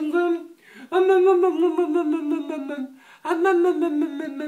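A voice making long, drawn-out, wordless vocal sounds at a fairly steady, slightly wavering pitch. One ends just after the start, and two more follow, each about two seconds long.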